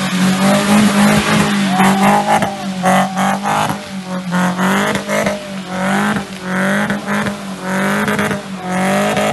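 Daihatsu Terios engine working hard under load as the SUV climbs a slippery mud track, its pitch rising and falling as the throttle is worked and the tyres slip.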